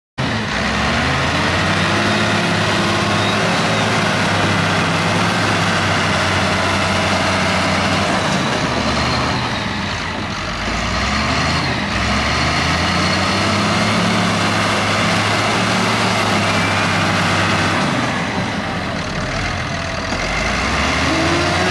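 Caterpillar 938F wheel loader's diesel engine running as the machine drives about. The note holds steady, eases off twice (about ten seconds in and again near the end), then picks up and climbs in pitch.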